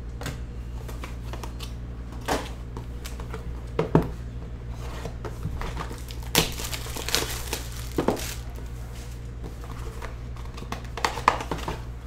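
Hands handling and opening a cardboard trading-card box (2022 Topps Clearly Authentic): irregular rustles and scrapes of cardboard and packaging, with the sharpest ones about 4, 6.5, 8 and 11 seconds in. A steady low electrical hum runs underneath.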